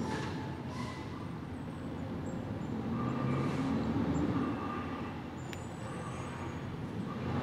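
Garbage truck's diesel engine running out of sight, with a couple of brief hisses.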